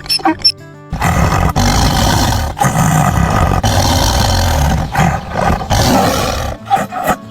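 A big cat roaring: loud, deep, rough roars one after another, starting about a second in and stopping shortly before the end.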